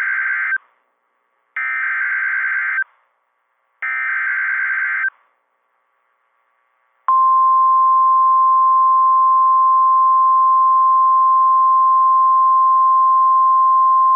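NOAA Weather Radio EAS alert opening: the end of the first and then two more SAME header data bursts, each a harsh digital screech about a second long. About seven seconds in, after a short silence, the steady 1050 Hz Warning Alarm Tone starts, announcing a severe thunderstorm warning.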